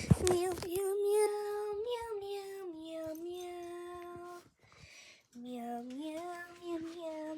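A high-pitched voice singing long held notes without words that are made out, stepping and sliding from one pitch to the next, with a short pause partway through. A brief loud clatter of clicks sounds right at the start.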